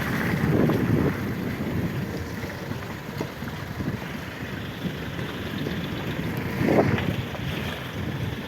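Off-road vehicle engine running, with wind buffeting the microphone and louder surges about half a second in and again near seven seconds.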